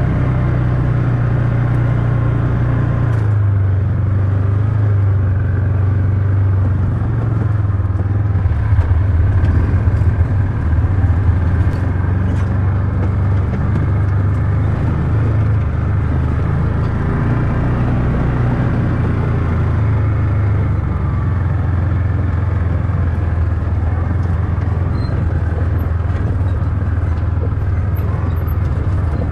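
Off-road UTV engine running steadily with a low hum, its pitch shifting slightly a few seconds in. A few louder, uneven knocks come about ten seconds in.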